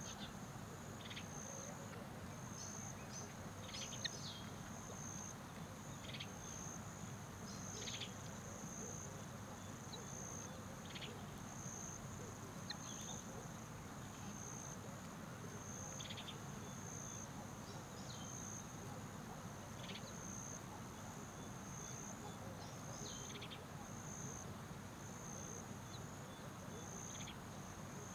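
High insect chirping that pulses about once a second, with short higher chirps every couple of seconds over a steady low hum.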